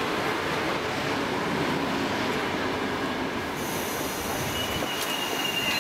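VR Sm2 electric commuter train rumbling along the platform as it slows. From about three and a half seconds in, a high, steady squeal sets in as it brakes toward a stop.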